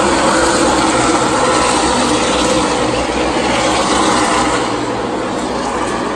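A field of NASCAR Xfinity Series stock cars racing around the track, their V8 engines making a loud, continuous drone that eases slightly after about five seconds.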